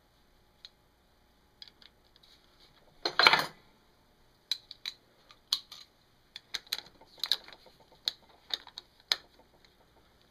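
Metal hand tools and small engine parts clinking: one loud clatter about three seconds in, then scattered light clicks and taps.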